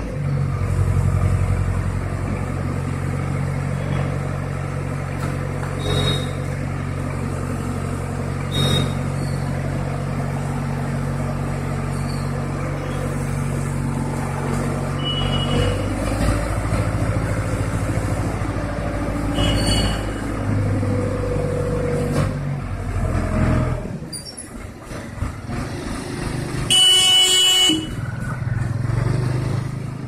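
ACE 14XW pick-and-carry crane's diesel engine running steadily while the boom is held and adjusted, its note shifting about halfway through. The engine drops away near the end, and a vehicle horn then sounds for about a second.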